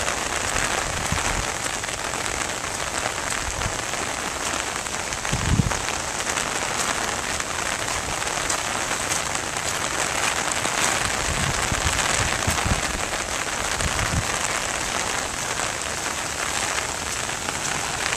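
Steady rain pattering on an umbrella overhead, with a few low thuds, the strongest about five and a half seconds in.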